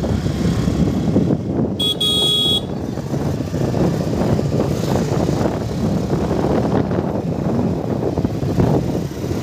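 Busy road traffic with a steady low rumble, and a vehicle horn honks once, briefly, about two seconds in.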